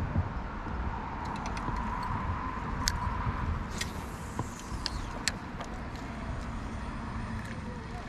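Steady low outdoor rumble, with a handful of sharp clicks between about one and five seconds in.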